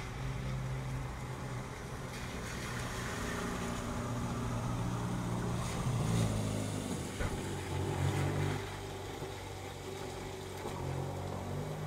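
A car engine on the rain-wet street, growing to its loudest about six to eight seconds in, over steady rain.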